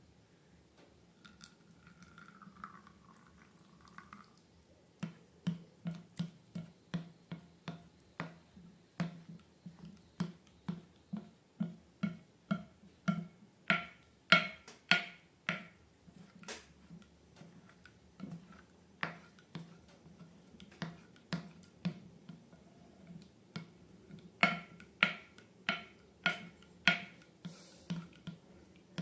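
Sticky slime being squeezed and pressed, making short wet clicking pops about two a second with a low thud under each.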